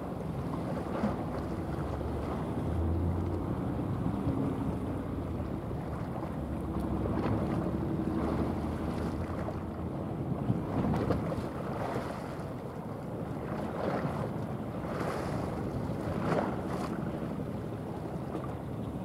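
Steady low drone of a passing container ship, with wind on the microphone and the wash of water. There are a few short, louder swishes in the second half.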